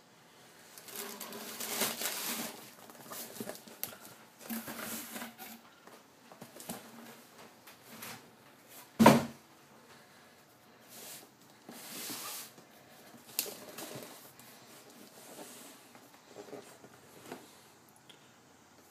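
Plastic air-pillow packing rustling and cardboard boxes being handled during unpacking, with one sharp thump about nine seconds in as the box is set down on the table.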